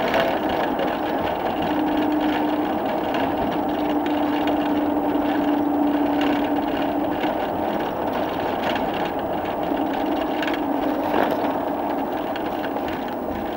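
Steady engine and road noise heard from inside a moving vehicle's passenger compartment, with a low drone that fades out and comes back partway through.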